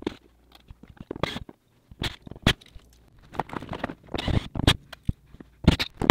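Irregular clicks, taps and scrapes of hardware and a cordless drill being handled against an overhead wooden cabinet, busier in the second half.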